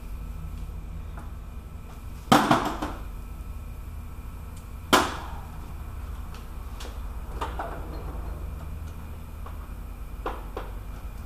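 Two sharp metallic knocks and a few lighter clicks of hand tools and hardware being handled as the 13 mm nut goes back on the starter's battery cable terminal. A steady low hum sits under them.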